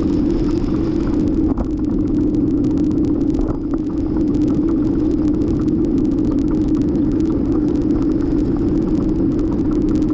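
Steady rumble of a folding bicycle rolling along paved road, with tyre noise and wind on the microphone. The rumble dips slightly twice, about one and a half and three and a half seconds in.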